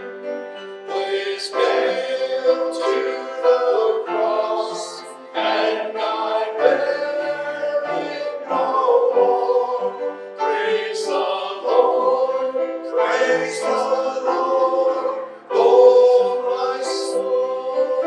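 Worship song: singing with instrumental accompaniment, in phrases that rise and fall.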